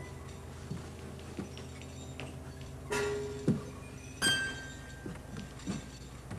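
Two ringing clinks from struck objects: one about three seconds in, and a louder one about a second later that rings on in clear high tones for a second or so. A few soft knocks come in between.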